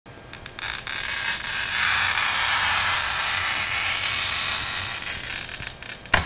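Glass scribe scoring a sheet of mirror glass along a straightedge: a steady, high scratching hiss lasting about six seconds, ending in one sharp click.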